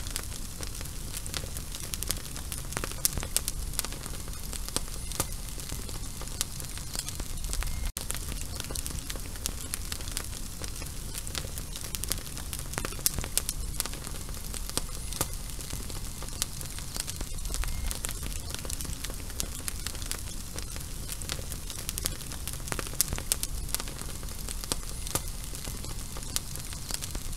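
Lit fuse burning: a steady sizzling hiss with irregular sharp crackles.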